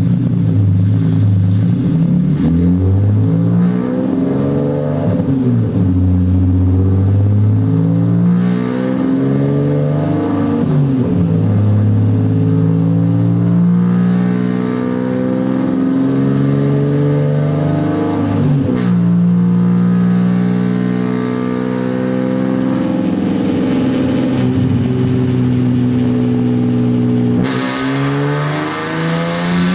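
BMW E46 M3's S54 straight-six running loud on a chassis dyno, heard at the tailpipes through Supersprint headers and muffler with the exhaust dump valve open. The revs climb and fall several times, holding steady for stretches in between.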